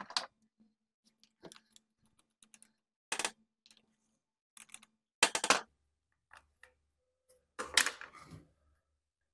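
Irregular clicks and knocks of a hand driver on the nuts and the plastic air filter base of a Husqvarna 142 chainsaw as the two nuts are taken off and the base comes away. The loudest knock is a little past the middle, with a few more near the end.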